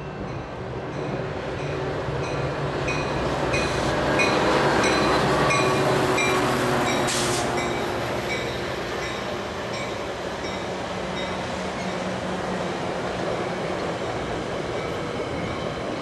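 A Metra push-pull commuter train, led by its diesel locomotive, approaches and passes close by. The locomotive's drone builds to its loudest about four to six seconds in, with regular clicks from the wheels about twice a second. A brief hiss comes near seven seconds, then the steady rumble of the double-deck passenger cars rolling past.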